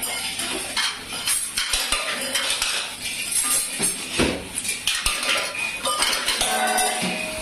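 Metal kitchenware clattering and clinking irregularly as a small child handles a wire basket and a wire rack among steel pots, plates and lids on a hard floor.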